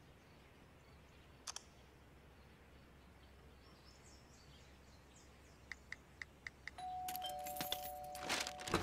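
A run of about five quick, light taps on a phone's keyboard, then a two-tone doorbell chime, a higher ding followed by a lower dong that rings on, about seven seconds in.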